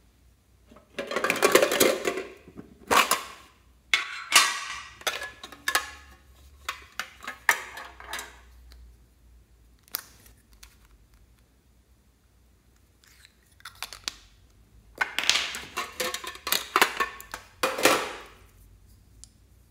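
A small metal tin and the plastic trinkets inside it being handled: bursts of clattering and clicking as the lid opens and the pieces knock and scrape against the tin. There is a dense burst about a second in, a run of lighter clicks over the next few seconds, and another dense burst about fifteen seconds in.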